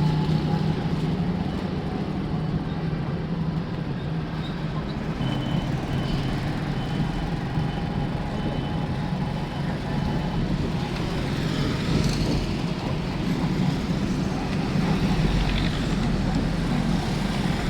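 Road traffic: vehicle engines running steadily. A faint, high, broken beeping comes in the middle.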